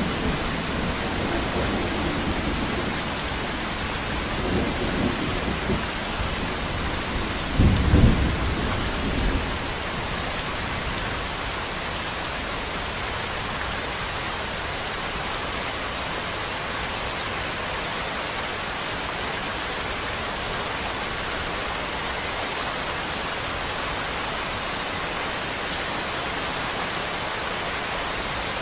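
Steady rainfall, an even hiss throughout. Over the first ten seconds a low rumble comes and goes beneath it, loudest about eight seconds in.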